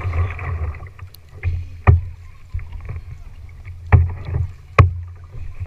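Kayak paddling: water splashing and swishing off the paddle blades, with sharp knocks about two, four and five seconds in and low thumps on the plastic hull.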